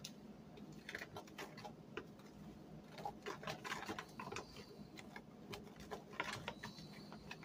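A fork stirring flour in a plastic bowl: quiet, irregular light clicks and scrapes of the fork against the bowl.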